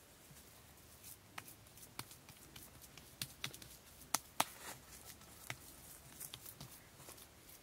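Bare hands patting and pressing wet mud plaster onto a mud wall: irregular soft slaps and clicks, the two loudest a little over four seconds in.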